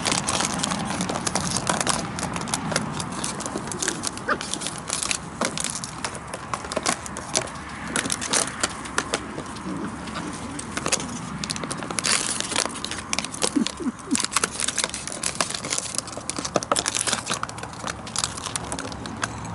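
Empty plastic water bottle crinkling and crackling irregularly as dachshund puppies bite and tug at it.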